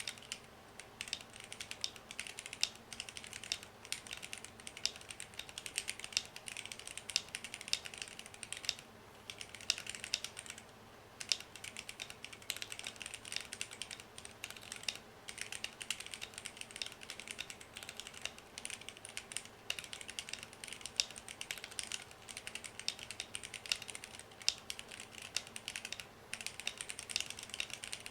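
Typing on a Womier K66 65% mechanical keyboard whose stabilizers have been tuned, lubed and cloth-taped. Fast, continuous keystroke clacks, with a couple of brief pauses about nine and eleven seconds in.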